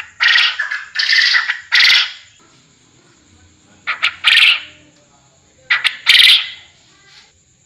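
Quail lure call playing: harsh, scratchy calls in clusters, three in the first two seconds, then a pair near four seconds and another near six.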